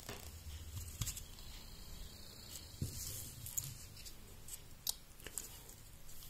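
Faint handling noise: scattered small clicks and rustles as plastic computer cooling fans and their wires are turned over in the hands.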